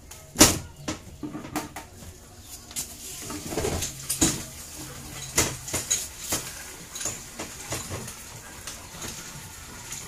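Irregular clicks, taps and knocks of metal and plastic parts being handled inside the base of a washing machine under repair, with one sharp knock about half a second in.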